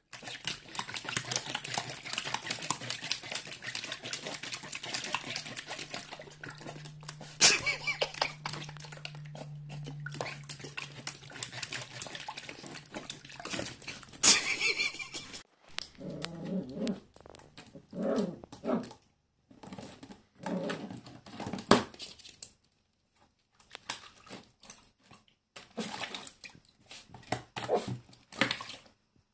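Schipperke puppy splashing water in a plastic tub with its paws and mouth, dense splashing with a couple of sharp knocks against the plastic. After about 15 seconds the splashing stops and the puppy gives several short barks between knocks of its paws on the tub.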